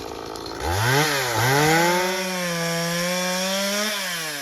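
Two-stroke chainsaw revved up twice in quick succession, held at high speed for about two seconds, then dropping back toward idle near the end.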